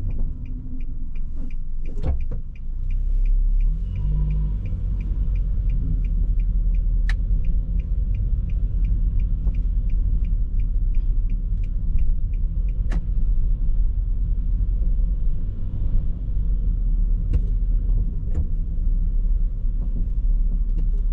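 Car driving, recorded by a dashcam, with a steady low road and engine rumble. A regular ticking of about two to three a second runs until about 13 seconds in, and there are a few sharp knocks.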